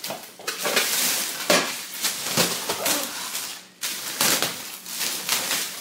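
Clear plastic wrapping crinkling and rustling in quick, uneven handfuls as it is pulled off a new walking-pad treadmill.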